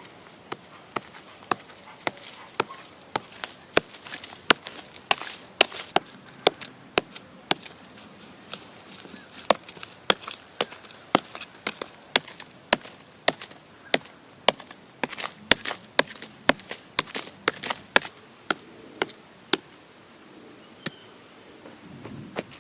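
Wood being chopped with a blade: a long run of sharp, regular strikes, about two a second. Under it runs a steady, high-pitched insect drone that grows louder near the end.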